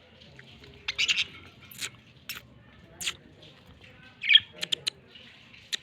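Budgerigars chirping and squawking: a run of short, sharp calls, the loudest a little past the middle, over soft warbling chatter.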